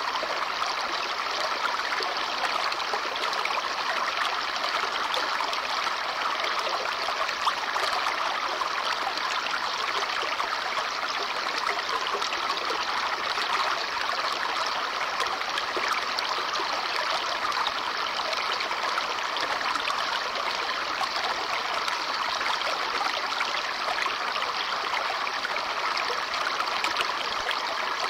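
Babbling brook: water running and trickling over stones in a steady, even rush.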